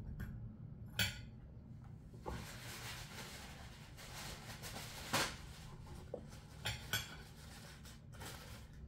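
A metal utensil clinks sharply against a plate about a second in. Then comes quiet, papery rustling as a paper napkin is handled, with a few more light clicks and knocks.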